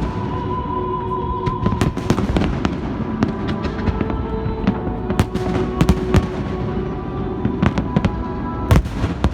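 Fireworks bursting: many sharp bangs and crackles, irregular and overlapping, with music playing underneath.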